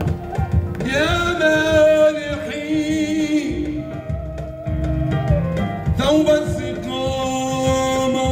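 Live Arabic Sufi inshad: a male voice holds long, wavering melismatic phrases, one starting about a second in and another near six seconds, over a band with keyboard and a steady low drum beat.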